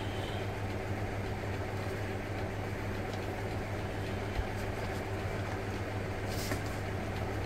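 Steady background noise with a constant low hum and rumble, the kind the uploader himself calls too much noise in his recording. A single light knock about four seconds in.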